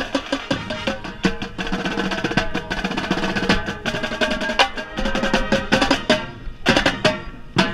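Marching band playing, heard up close from the tenor drums (quads): rapid sharp drum strokes and rim clicks over sustained brass chords.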